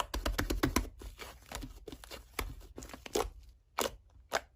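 Slime being pressed and squished by hand, giving a run of crisp crackling clicks, dense in the first second and sparser after.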